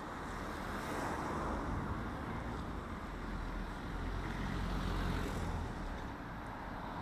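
Street traffic: cars driving past, a steady rush of engine and tyre noise with a low rumble.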